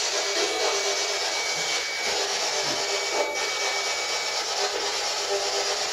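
Spirit box (PSB11) scanning radio frequencies, giving a steady hiss of radio static. A thin, high, steady tone sits over it from the start until about four seconds in.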